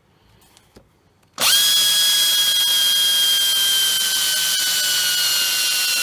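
Power drill starting about a second and a half in and running steadily as a twist bit bores into a block of scrap wood, its whine sinking slightly in pitch under the load. A few faint handling clicks come before it.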